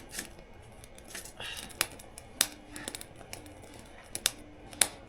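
Sharp, irregular snipping clicks of food being cut, about half a dozen spread over a few seconds.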